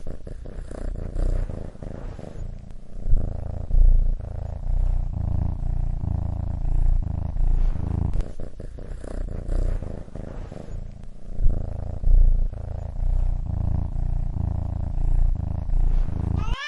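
Domestic cat purring close up: a steady low rumble that swells and dips every few seconds. A meow begins at the very end.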